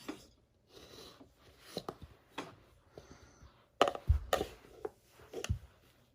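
Household handling noise: a string of light knocks, clicks and rubbing, with a heavier thump and clatter about four seconds in.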